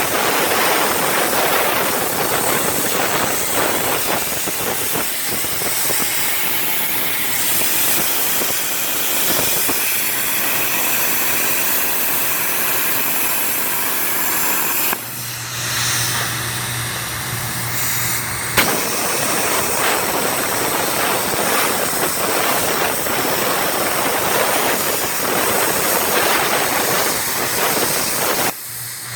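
CNC pantograph machine running, a loud steady hiss of machine noise. About halfway through, the sound changes abruptly to a steady low hum for a few seconds before the hiss returns, and the hum comes back near the end.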